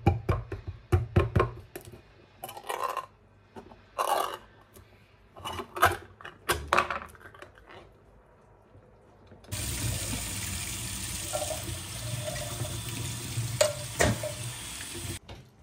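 Hand-held can opener working around the lid of a tin of peas in a run of sharp metal clicks and scrapes. About ten seconds in, a kitchen tap runs water onto the peas in a wire strainer over a stainless-steel sink for about five seconds, then stops.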